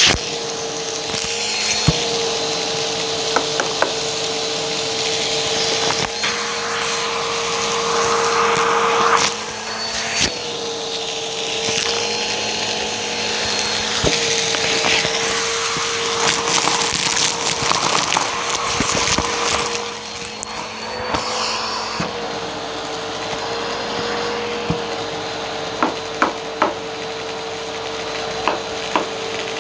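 Vacuum cleaner running with a steady motor whine while its hose nozzle sucks up small dry debris from a rug. Crackling and sharp ticks come through as grains and bits rattle up the hose, more of them near the end.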